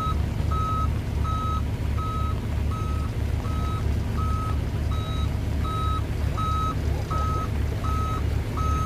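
Truck reversing alarm beeping steadily at one pitch, about three beeps every two seconds, over the low rumble of a heavy diesel truck engine running during the recovery pull of an overturned dump truck.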